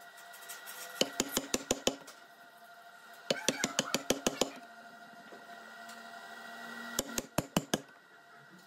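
A chisel being driven into a timber beam by quick hammer blows, chopping out a mortise. The blows come in three rapid runs of six or seven strikes each, about one, three and a half and seven seconds in, over a faint steady hum.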